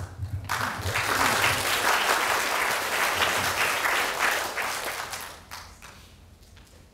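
Audience applauding a speaker who has just been introduced. The applause starts about half a second in and fades away over the last two seconds.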